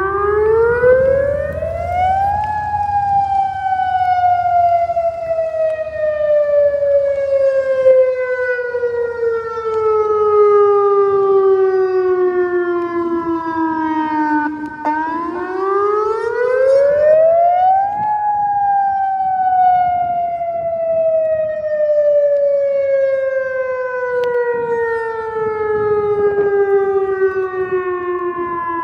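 Older outdoor tornado warning siren sounding a wail during a test. Its pitch climbs quickly for about two seconds, then falls slowly for about twelve seconds, and the cycle comes twice.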